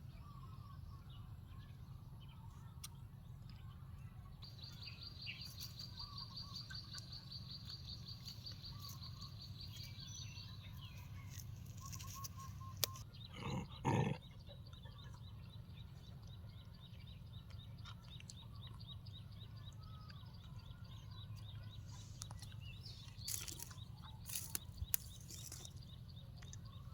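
Faint bird chirping outdoors: a high, rapid trill for several seconds, then a thinner high tone, over a low steady hum, with a few short clicks and knocks in the middle and near the end.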